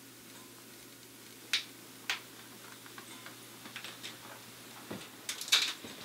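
Sparse sharp clicks over a low steady hum: two clicks about half a second apart, then a dull thump and a quick cluster of louder clicks near the end.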